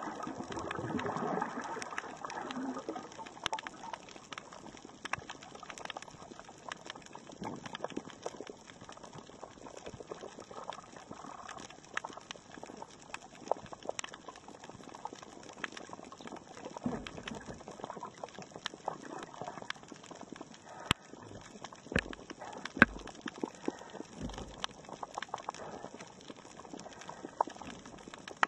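Underwater reef ambience: a steady hiss with frequent irregular sharp clicks and crackles. A swirl of louder water noise comes near the start, and a few dull low thumps come in the second half.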